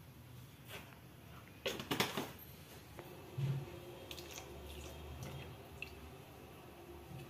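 A spoon stirring in a pot of water, with a cluster of clinks and splashes about two seconds in, then a low knock and a few light ticks and drips as oil is poured from a ladle into the water.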